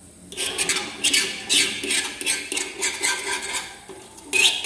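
Repeated rasping scrapes on a copper pastry tray as a dioul pastry sheet is worked on it, several short strokes a second with a brief pause near the end.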